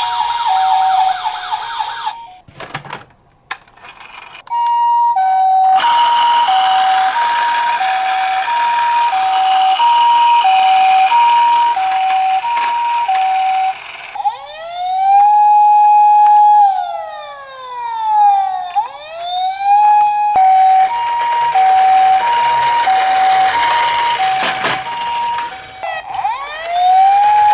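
Emergency-vehicle siren in the hi-lo two-tone pattern of a Japanese ambulance, switching between two pitches about once a second. It cuts out for a couple of seconds of clicks early on. Around the middle it changes to a wail that rises, holds and falls twice, then goes back to the two-tone, and a rising wail starts again near the end.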